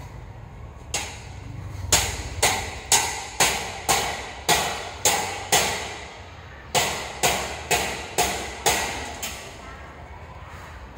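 Hammer blows on a construction site, about two strikes a second, in two runs with a short pause between them, each strike ringing briefly.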